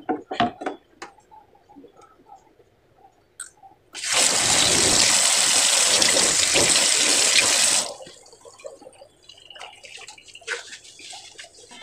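Water running hard from a kitchen tap for about four seconds, starting and stopping abruptly. A few light knocks and clicks come about a second before.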